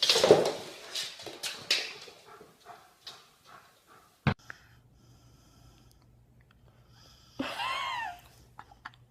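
A pet animal's noisy breaths and sniffs, a sharp click about four seconds in, and one short call near the end that rises then falls.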